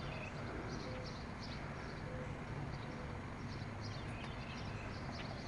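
Steady background noise with faint, scattered bird chirps.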